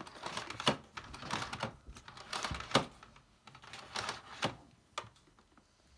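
Irregular plastic clicks and knocks from a Grundig VCC 9773 canister vacuum cleaner and its power cord being handled; the motor is not running.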